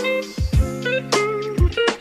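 Background music: a guitar melody over a steady drum beat.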